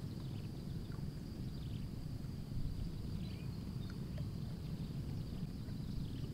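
Outdoor ambience: a steady low rumble like wind on the microphone, a thin steady high buzz, and faint short falling chirps every second or so.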